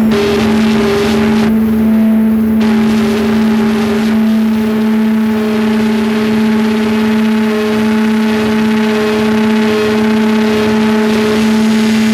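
Experimental drone/noise music: a steady low droning tone with a higher held tone above it over a dense, machine-like hiss. The top of the hiss drops away for about a second near the start.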